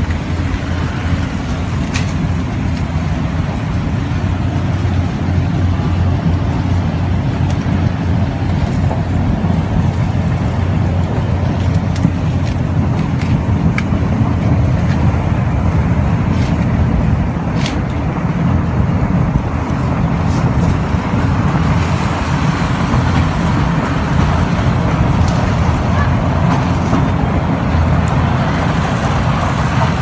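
Engine running steadily, a low even drone throughout with faint clicks over it.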